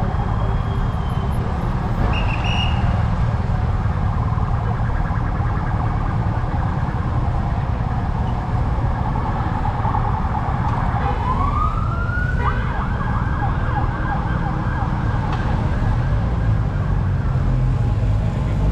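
An emergency-vehicle siren wails up in pitch about eleven seconds in and holds a high note for a few seconds, over the steady rumble of city street traffic.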